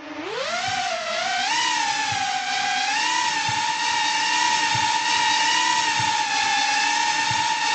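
Synthesized FPV quadcopter motor whine generated from Betaflight blackbox data. The pitch rises quickly over the first second and a half, then holds a steady high whine with a slight waver.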